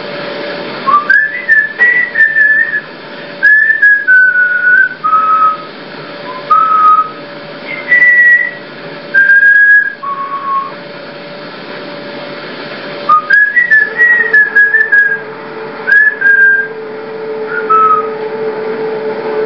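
A person whistling a slow tune of held notes, each sliding up slightly into pitch, in two phrases: the second begins about thirteen seconds in.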